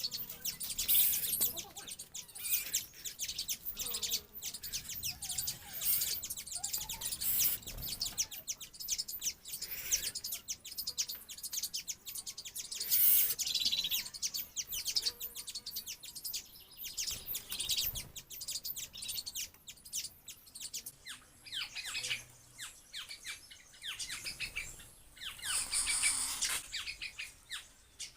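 Birds chirping and twittering in dense runs of short high-pitched notes, louder about a second in, near the middle and near the end.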